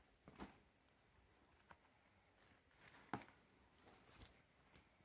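Faint rustling and soft taps of silky fabric and cardboard as clothes are lifted out of an open cardboard box, with a sharper click about three seconds in.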